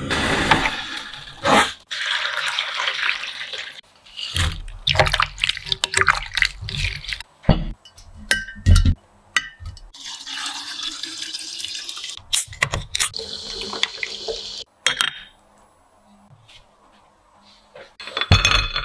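Liquid pouring and splashing, a vinegar-water pickling brine, broken up by knocks and clinks of kitchenware and glass; the sound comes in short stretches that start and stop abruptly, with a quieter spell near the end.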